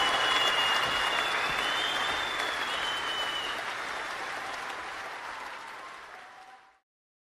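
Applause from a crowd, with a few whistles in the first three seconds, fading steadily and cutting out to silence near the end.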